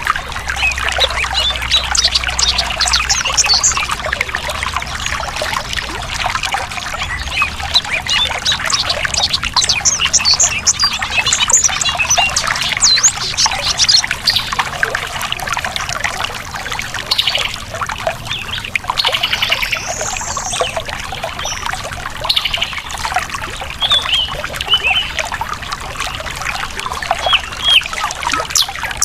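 Water trickling and babbling over rocks, with many birds chirping and calling over it, in quick short notes and a few sweeping calls.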